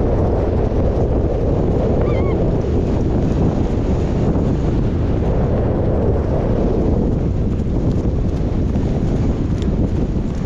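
Loud wind buffeting the microphone of a camera on a galloping rider, with the drumming of horses' hooves underneath. A brief wavering high call sounds about two seconds in.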